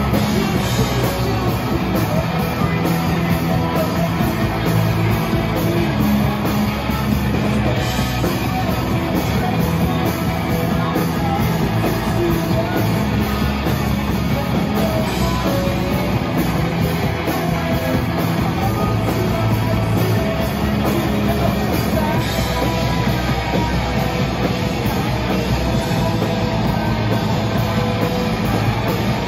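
Live rock band playing a song: electric guitars, bass and a drum kit with cymbals, a dense wall of sound at an even, loud level.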